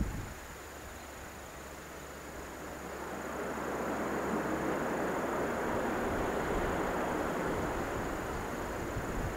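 Jet engine noise from a Boeing 737-500's CFM56 turbofans as the airliner rolls out after landing on a wet runway: a steady rushing noise that grows louder from about three seconds in and then holds.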